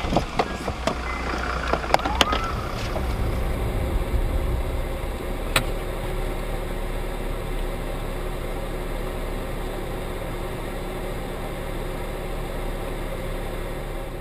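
Steady engine and road noise heard from inside a moving car, with one sharp click a little over five seconds in. The first few seconds hold scattered knocks and clicks.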